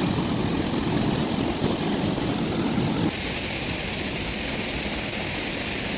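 Steady rushing noise of a waterfall, with no words, changing abruptly in tone about three seconds in.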